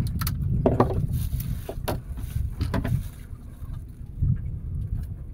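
Steady low rumble of wind and water around a small wooden boat, with scattered knocks and clicks from handling a freshly caught fish and line on the deck, most of them in the first three seconds.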